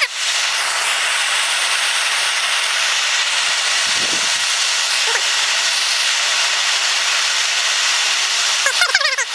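MAP gas hand torch burning with a steady hiss, heating a hardened steel punch to temper it. A short low thump comes about four seconds in.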